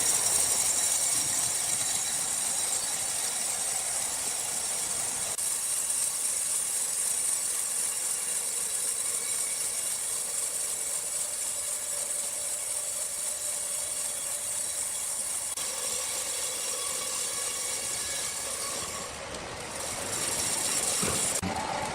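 Sawmill saw cutting through a log: a steady, high-pitched hiss and whine of the blade running through the wood, easing briefly near the end.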